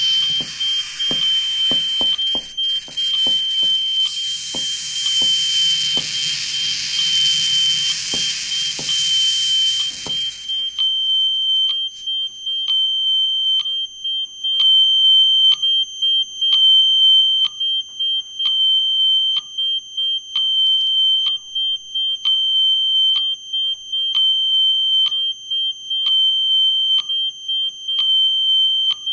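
Experimental live electronics: a single high, alarm-like tone held throughout, over a wash of hissing noise, a low hum and scattered clicks. About ten seconds in the noise and hum stop, leaving the tone pulsing with a regular tick a little more than once a second.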